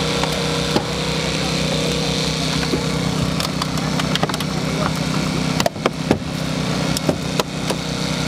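The small engine of a hydraulic rescue-tool power unit running steadily. Over it come sharp cracks and pops of car metal and glass giving way as a hydraulic rescue tool forces the door and pillar, several in the second half, the loudest a little past the middle.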